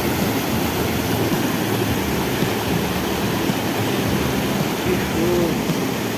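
Small waterfall with water pouring and splashing in a steady rush.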